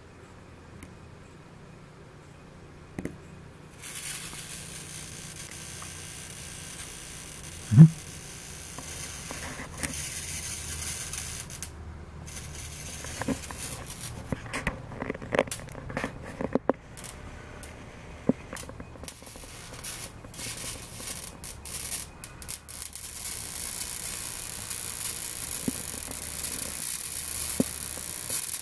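Electric bug zapper's high-voltage grid snapping and crackling at irregular moments as paper wasps fly into it and are electrocuted, over a steady low hum. The loudest snap comes about eight seconds in, and the snaps come more often around the middle.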